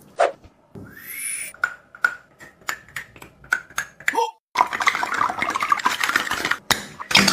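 A squishy toy being squeezed and pressed by hand: scattered clicks and squelches with a short rising squeak, then, from about halfway through, a dense crinkling rustle.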